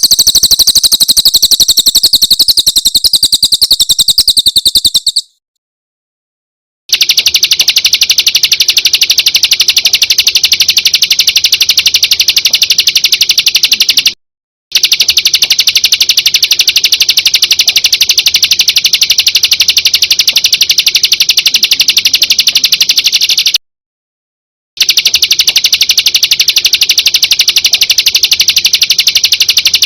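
Recorded songbird trills played back loud, spliced into segments with abrupt silent gaps: a high, rapid trill for about five seconds, then after a pause a lower, very fast, unbroken trill that runs in three long stretches, cut off twice by short silences.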